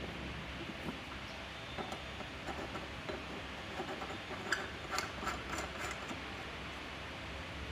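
Small clicks and light knocks of black iron plumbing pipe and fittings being handled and screwed together, clustered around the middle, over a steady low background hum.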